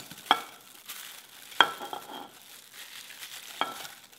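A ceramic plate clinking against the rim of an earthenware ttukbaegi three times, each a short ringing clink, over the soft rustle of sliced vegetables being pushed off the plate into the pot.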